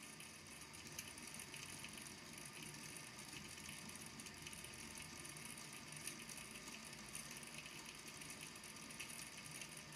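Small balls in a water-filled volcano lamp tapping on the base of the tank: a faint, rhythmic, continuous patter of fine clicks.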